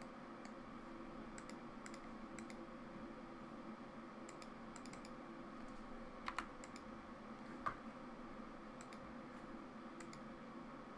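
Light, scattered clicks of a computer mouse and keyboard, a dozen or so, the loudest a quick pair about six seconds in and a single sharper click a second and a half later, over a faint steady hum.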